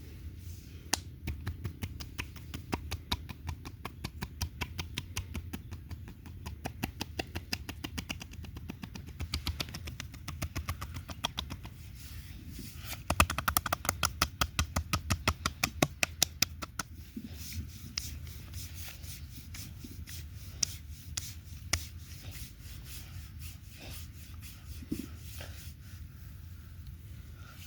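Hands massaging oiled skin, with a long run of short wet clicks at about three a second, loudest about halfway through.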